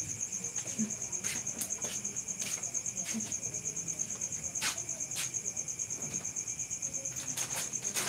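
A cricket trilling steadily, a continuous high, fast-pulsing chirp. Over it come a few light clicks and clacks as clothes hangers are handled.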